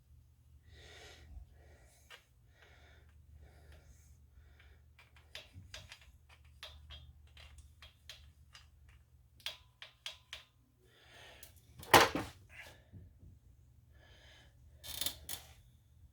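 Hand tools and parts being handled while a car's front wheel hub is reassembled: short scrapes and a run of small clicks and clinks, with one sharp knock about twelve seconds in and a brief scrape near the end.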